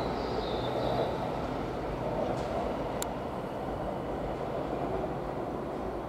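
Keihan 2600 series electric train running in at low speed, a steady rumble of wheels and motors on the rails, with a faint high wheel squeal in the first second. A single short click sounds about halfway.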